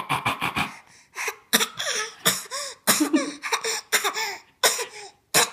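A baby of about ten months fake-coughing: a run of short, voiced little coughs, about a dozen, coming one after another with brief gaps.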